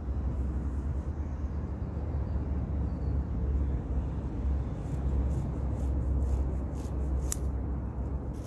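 Wind buffeting the microphone, a steady low rumble, with a few faint clicks about five to seven seconds in, one of them sharper.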